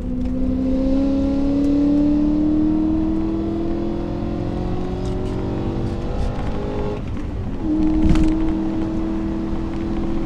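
BMW E92 M3's naturally aspirated V8 pulling under throttle, its pitch climbing steadily for about seven seconds. The note then breaks briefly and settles at a steady pitch, with a single sharp knock about eight seconds in.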